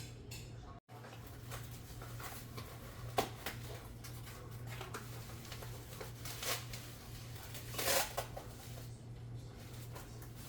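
Handling noises while unpacking an appliance: packaging rustling and scraping, with a sharp click about three seconds in and a louder rustle near eight seconds, over a steady low hum.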